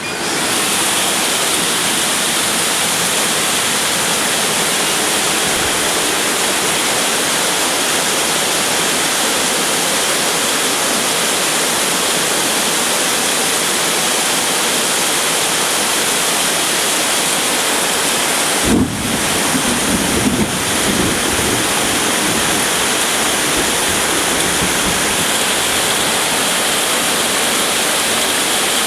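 Heavy rain pouring down in a strong thunderstorm, a dense, steady hiss. About two-thirds of the way through, a brief low rumble rises under it for a couple of seconds.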